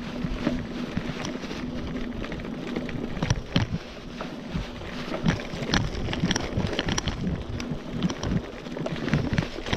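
Giant Talon 3 hardtail mountain bike ridden fast over a bumpy dirt trail: tyres rolling on dirt, with frequent irregular rattles and knocks from the bike over bumps, and wind buffeting the microphone.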